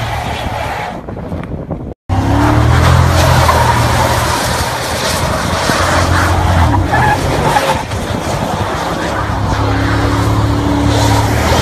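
2016 Cadillac Escalade's 6.2-litre V8 held at high revs while the SUV spins its tyres and slides, with skidding tyre noise. The sound cuts out for an instant about two seconds in, then runs loud again, easing off briefly about two-thirds of the way through before building back up.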